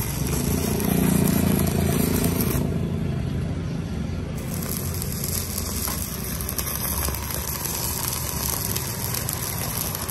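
Stick-welding arc from a Brotech MK-200F inverter welder, a 2.6 mm electrode burning steadily as it runs a bead on 1 mm thin steel at about 70 A. The high hiss thins out for a couple of seconds about three seconds in.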